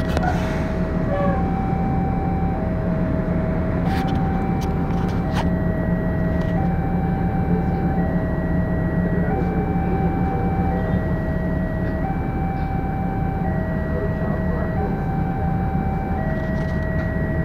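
Railway level-crossing warning alarm sounding a slow two-tone chime, switching between a higher and a lower note about every one and a half seconds, which signals that the barrier is down and a train is approaching. A steady low rumble runs underneath.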